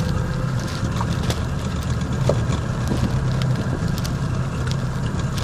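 Small boat's engine idling steadily with a low hum, and a few faint clicks over it.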